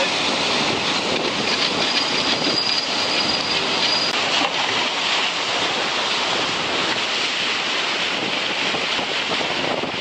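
Steady rushing of wind and water spray past a racing trimaran sailing fast in high winds, with wind buffeting the microphone. A thin high whistle sounds faintly for a couple of seconds about a second and a half in.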